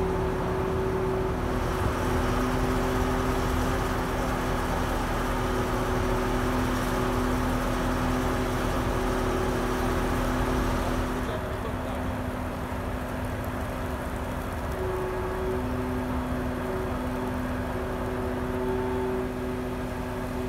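Lorry-mounted hydraulic crane running steadily as it lowers a steam locomotive boiler, with a steady hum. It gets a little quieter about 11 seconds in and the hum briefly drops out.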